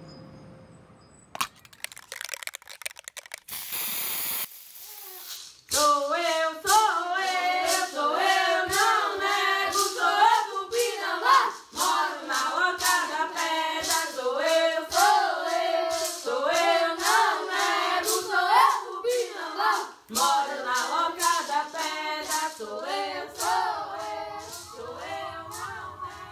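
Scattered clicks and a brief burst of hiss at first. From about six seconds in, voices singing together over a steady beat of sharp percussive strokes.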